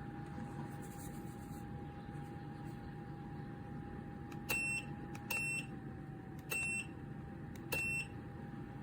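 Small electric space heater running with a steady fan whir, and four short electronic beeps from its controls at irregular intervals of about a second, starting halfway through, as its settings are changed.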